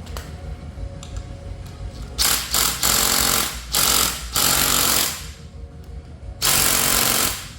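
A power impact wrench hammering in several short bursts, then one longer burst, on a reverse-Torx drive-unit mounting bracket bolt. The bolt is very tight and slow to break loose.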